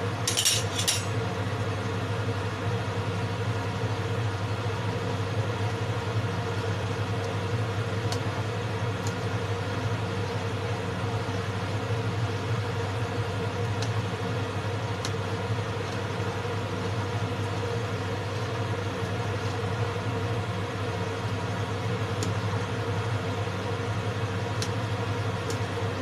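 Steady low machine hum, with a short scraping noise in the first second and a few light clicks of a spoon and bowl against the pot.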